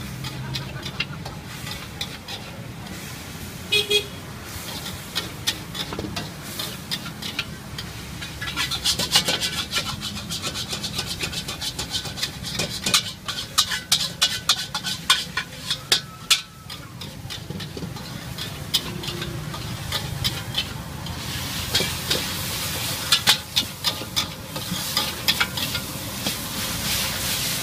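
Night street traffic with a steady low hum and a short vehicle horn toot about four seconds in. From about eight seconds in there are rapid runs of clicking and clattering, and near the end a metal spatula clatters and scrapes around a wok of frying noodles.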